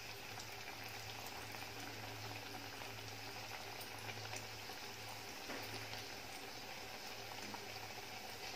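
Khaja pastries deep-frying in ghee in a kadhai on a low flame: a soft, steady bubbling sizzle.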